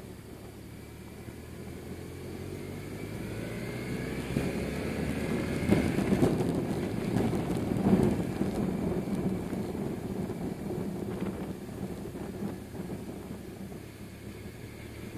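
A BMW R1100RS's air/oil-cooled boxer twin engine heard from the rider's seat, accelerating with its pitch rising for the first several seconds. It is loudest around the middle, then drops back to a quieter, steadier run as the throttle eases.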